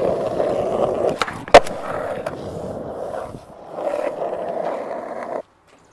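Skateboard wheels rolling over pavement with a steady rough rumble, broken by one sharp loud clack about a second and a half in. The rolling eases briefly past the middle, resumes, then cuts off abruptly near the end.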